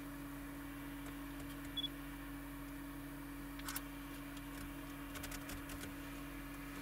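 A steady low hum, with one short high beep about two seconds in and a few faint clicks near four seconds and again between five and six seconds, typical of a handheld camera being handled.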